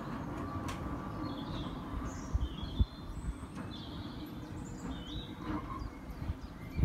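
Small birds chirping in short calls over a steady low outdoor rumble, with a dull thump near three seconds in.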